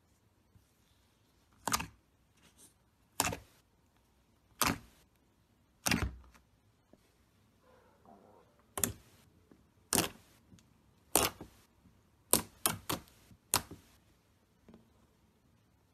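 Fluffy slime pressed and poked with fingertips, giving short pops about a second apart, with a quick run of three or four near the end.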